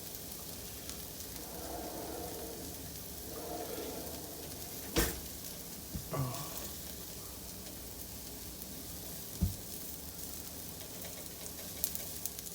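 Onions sizzling in a pan as they caramelize, a steady high hiss, with a few sharp knocks, the loudest about five seconds in.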